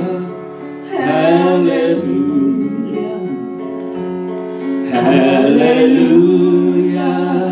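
Music: a man and a woman singing a slow gospel-style song with instrumental accompaniment, holding long notes, with a new phrase starting about five seconds in.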